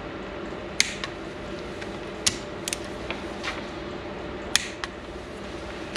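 Click-type torque wrench tightening cylinder-head cover bolts to 14 N·m: a few sharp clicks a second or two apart, each as the wrench reaches its set torque, with softer ratchet ticks and creaks between.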